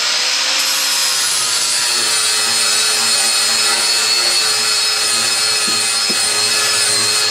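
Angle grinder running steadily at full speed, its disc grinding a chamfer into the corner of a wooden board.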